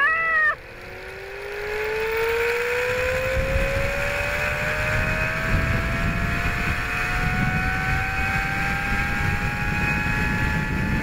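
Zipline trolley pulleys running along the steel cable with a whine that rises steadily in pitch as the rider gathers speed, over low wind rumble on the microphone. A short cry from a rider right at the start.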